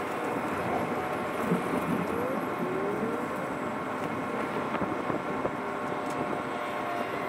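Steady engine noise of a running vehicle or machine, with short whines rising in pitch about two to three seconds in and a thin steady whine setting in near the end.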